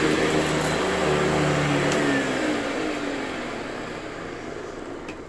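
Hoover Convertible U4345 upright vacuum running steadily, then switched off about two seconds in, its motor hum falling in pitch and fading as it winds down.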